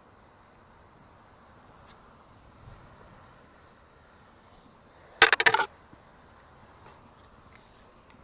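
Faint outdoor background with insects buzzing steadily, broken about five seconds in by a short, loud burst of rapid clicking or rattling lasting about half a second.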